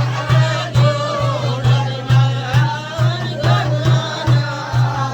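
A voice singing a wavering, ornamented chant over a low drum beat of about two strokes a second.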